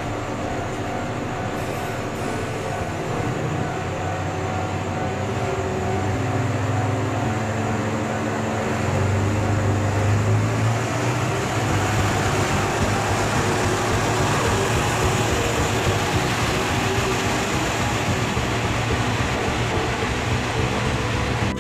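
Diesel railcar engine running and revving up as the single-car train pulls away from the platform. It grows louder about nine seconds in as the car moves off.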